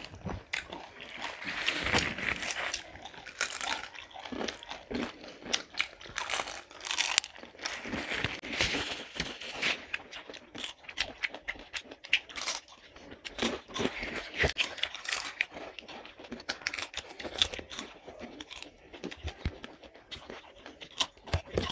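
Two people biting into and chewing crisp fried jalebi (jilapi) close to the microphone: an irregular run of sharp crunches and chewing sounds.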